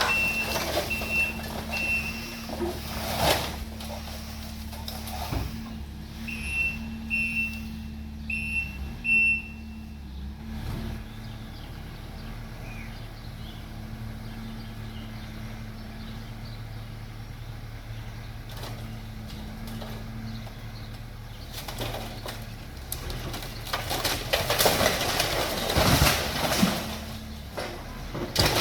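A track hoe's diesel engine running steadily while it demolishes a house. Its backup alarm beeps in two short runs near the start. From about three-quarters of the way through, loud crunching and crashing of the structure being torn down builds up.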